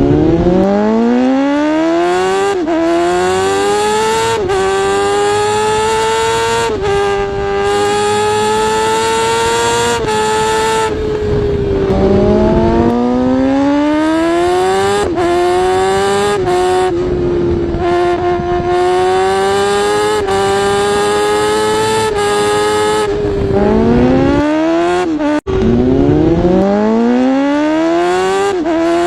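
Honda H100S motorcycle engine accelerating through the gears. Its pitch climbs and drops back sharply at each shift, holds steady for stretches, and slides down when it eases off. It cuts out for an instant near the end, then climbs again.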